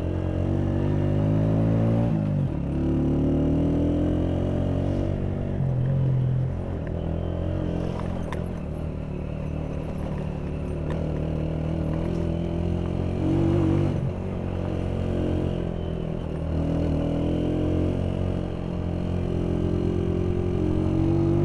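Motorcycle engine running on the move, its note rising and falling in pitch several times as the rider works the throttle and gears.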